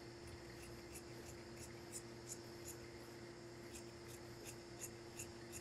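Tailor's scissors snipping through coat fabric and its lining along an armhole: a run of small crisp snips, two or three a second, pausing briefly midway, over a steady low hum.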